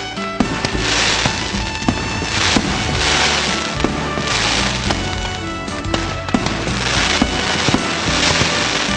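Fireworks going off: repeated bursts of crackling hiss about once a second, with sharp bangs scattered between them, over background music.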